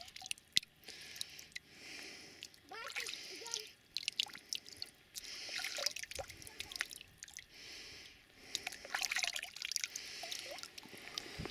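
Water dripping and trickling off a wet hand into shallow pond water, with many small sharp drips and splashes.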